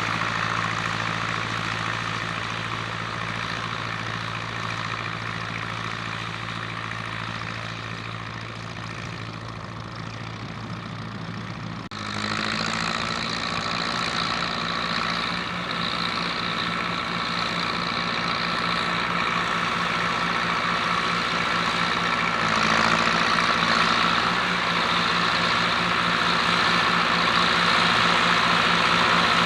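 Zetor Crystal 8011 tractor's diesel engine running steadily under ploughing load. It fades gradually at first, changes abruptly about twelve seconds in, then grows steadily louder, as if the tractor is drawing nearer.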